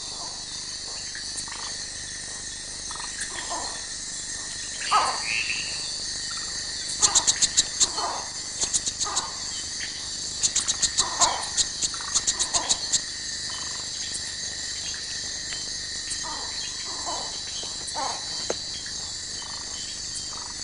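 Amazon rainforest ambience: a steady high insect drone, with clusters of rapid clicking pulses in the middle and many short falling calls from forest animals scattered throughout.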